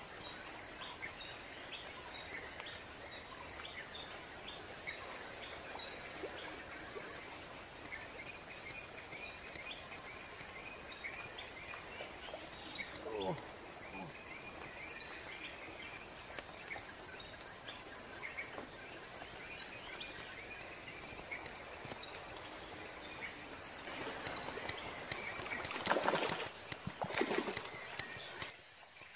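Riverbank ambience: a steady hiss of insects with many short bird chirps. Near the end the background grows louder and two brief bursts of rushing noise stand out.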